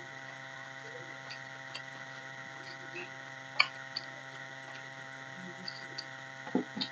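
Fingers mixing rice on a stainless steel plate, with scattered soft clicks and taps, the sharpest about halfway through, over a steady background hum.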